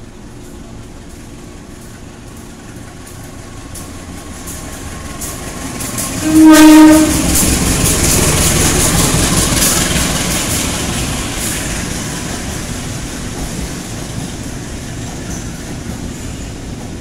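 CC201 diesel-electric locomotive approaching and passing at close range. It sounds one short, loud horn blast about six seconds in, then its engine rumble and the clatter of wheels over rail joints go by and slowly fade.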